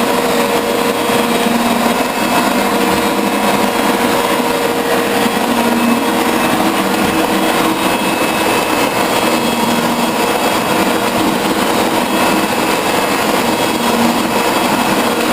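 Metal shaper running and cutting, its ram driving a bullnose tool bit back and forth across a steel workpiece: a steady machine drone with a lower note that swells about every four seconds. The cut is not yet cleaning up across the whole surface.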